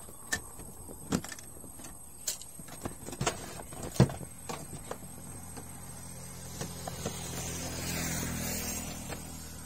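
Screwdriver and hands working on the plastic casing of an Epson L360 printer: scattered small clicks and knocks, the sharpest about four seconds in. In the second half a low steady hum builds, peaks near the end and fades.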